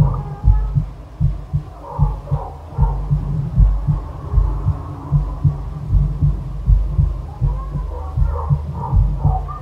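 Deep, low thudding pulses that repeat unevenly about once or twice a second, with faint wavering higher tones above them.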